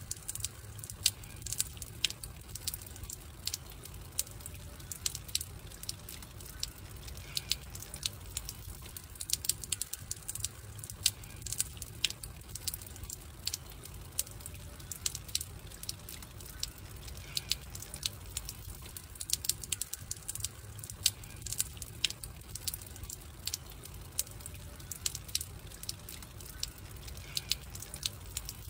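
Wood campfire crackling, with irregular sharp pops and snaps over a low steady rumble of burning.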